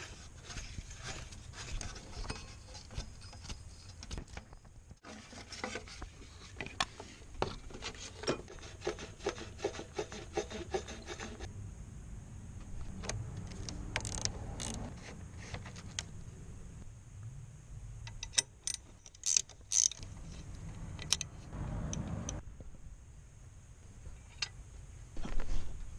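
Hand tools working on the engine: a rapid run of ratchet clicks for several seconds, then scattered metallic clicks and knocks with some rubbing.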